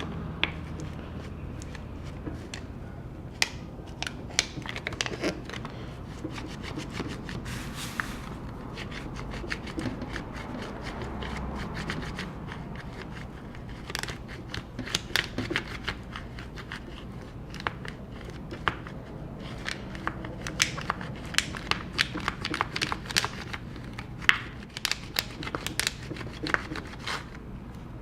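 Irregular sharp clicks and crackles of a glued MacBook Pro battery cell being pried loose from the case, the adhesive tearing and the tool scraping, coming thicker in the second half.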